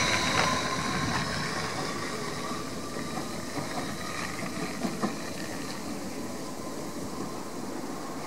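Class 333 electric multiple unit pulling away, its high thin squeal and whine fading over the first second or two and leaving a steady low rumble and hiss.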